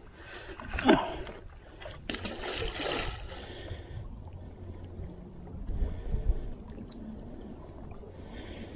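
Handfuls of burley, sand mixed with weed, splashing into the water, the sharpest about a second in and a few more around two to three seconds, over steady wind on the microphone and lapping water.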